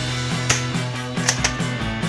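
Background music with a steady beat: repeated bass notes and sharp drum hits.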